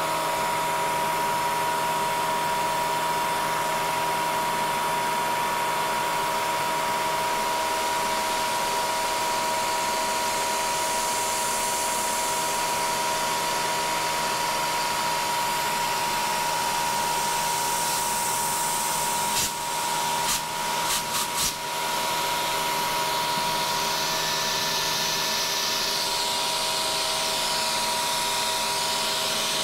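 CNC Bridgeport milling machine cutting with a 1/4-inch end mill. The spindle and cut give a steady whine over the hiss of a mist-coolant spray aimed at the cutter. The sound breaks briefly a few times about twenty seconds in.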